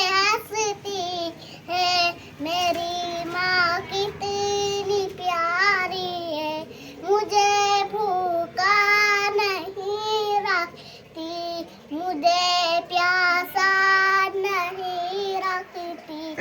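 A young girl singing unaccompanied in a high, clear voice, with long held notes that waver in vibrato and phrases broken by short breaths.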